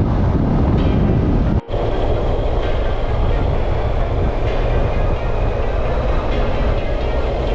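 Motorcycle being ridden at road speed, its engine and the rush of wind steady and loud, with a split-second dropout in the sound about one and a half seconds in.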